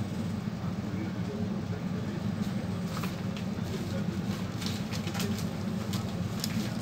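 Steady low background hum, with light metallic clicks and ticks from about three seconds in as a screwdriver works on a laptop's cooling fan assembly and its metal bracket.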